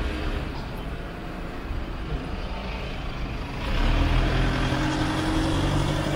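A van's engine and tyres on the road as it drives past close by, growing louder about three and a half seconds in, over steady street hum.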